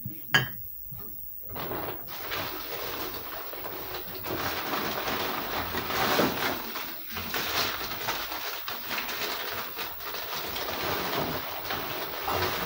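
A single knock about half a second in, then continuous crinkling and rustling of wrapping material being handled and pulled open to unwrap a purchased item.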